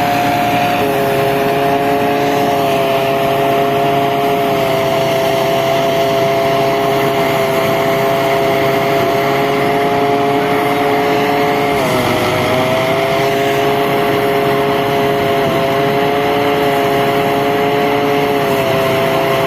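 A rice harvesting machine running steadily under load, with a steady whine. Its pitch dips briefly about twelve seconds in and then recovers.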